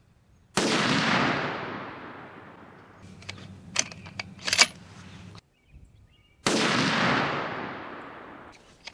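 Two rifle shots from a Christensen Arms MPR .308 bolt-action rifle fitted with its factory muzzle brake, about six seconds apart, each report echoing away over two to three seconds. Between the shots the bolt is worked with a few sharp metallic clicks.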